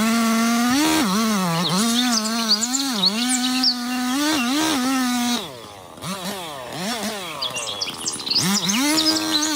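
Chainsaw running at high revs, its pitch dipping and recovering as it loads up in a cut. About halfway through it drops to lower revs with a few quick throttle blips, then revs up again near the end. Birds chirp over it.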